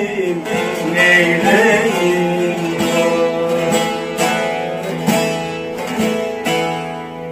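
Bağlamas (Turkish long-necked saz) playing the closing instrumental phrase of a folk song, with repeated strummed strokes ringing out and fading toward the end. A sung line trails off in the first couple of seconds.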